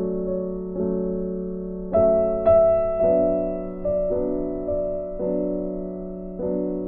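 Soft background piano music, with chords held and changing roughly once a second.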